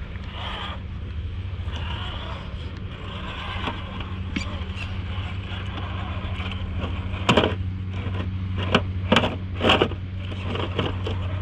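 Radio-controlled rock crawler truck driving over rocks: a steady electric drivetrain hum, with scraping and several sharp knocks between about seven and ten seconds in.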